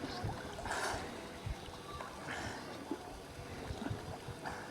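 Water splashing in a swimming pool, in short bursts about a second in and again just after two seconds, with scattered low thumps.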